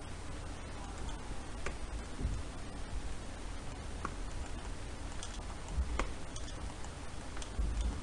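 A few faint, scattered computer mouse clicks over a steady low hum and hiss.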